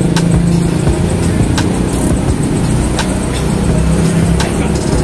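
Street traffic: cars and motorcycles running past with a steady low rumble.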